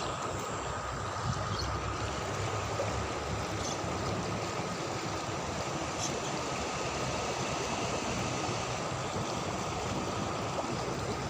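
River water flowing steadily, with a few faint ticks.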